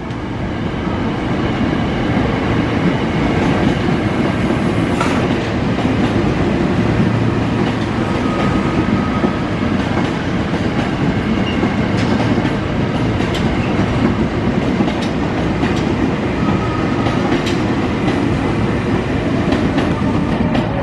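Ex-Tokyo Metro 6000-series electric commuter train running along the track: a steady rumble of the wheels, with scattered clacks as they cross rail joints and a brief faint whine twice.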